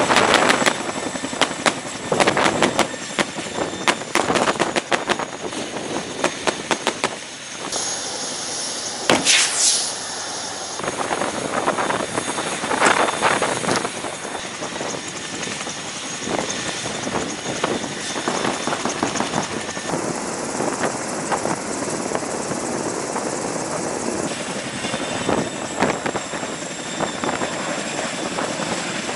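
Helicopter running close by: a steady high turbine whine over a broad rush of rotor and engine noise. A run of sharp cracks sounds through the first ten seconds or so, with a louder one about nine seconds in.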